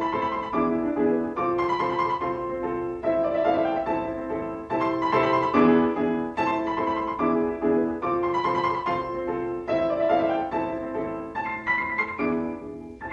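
Instrumental piano music: a repeating pattern of chords and melody notes, with no singing.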